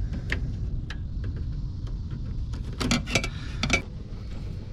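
Light clicks and scrapes of a hand tool and wire against a circuit breaker's terminal as the wire is worked into place, a few single clicks early and a quick cluster about three seconds in, over a steady low rumble.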